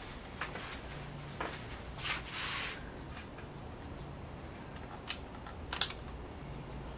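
Quiet room tone with a faint steady hum, broken by a few small scattered clicks and a short rustle about two and a half seconds in.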